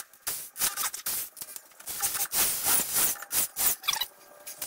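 Irregular scraping and rubbing handling noise: a run of quick, uneven, hissy strokes from gloved hands working at a bare metal motorcycle frame.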